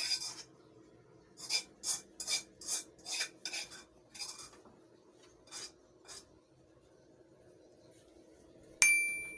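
Kitchen utensils scraping and rubbing in about ten short rasping strokes, then a single sharp metallic clink that rings briefly near the end.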